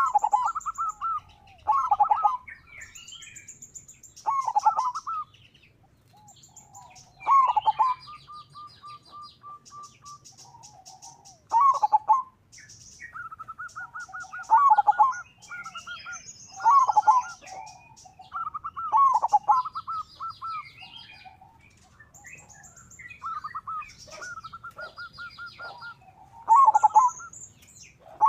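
Local zebra dove (perkutut) cooing over and over, a loud phrase every two to three seconds, some ending in a fast rolling trill. Fainter high chirps of small birds come in between.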